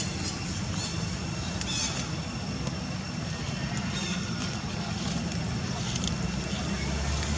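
Outdoor background: a steady low rumble with a thin, high, steady drone and several short high chirps.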